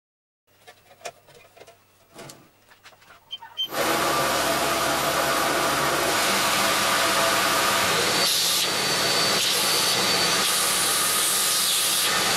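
A few light clicks and knocks, then about four seconds in a belt grinder with its dust collector starts suddenly and runs: a loud, steady rush of air and belt noise, like a vacuum cleaner.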